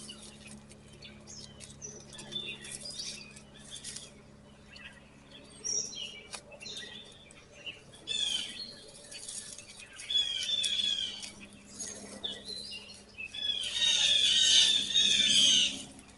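Songbirds singing: repeated phrases of quick, falling chirps, loudest near the end, over a faint steady low hum.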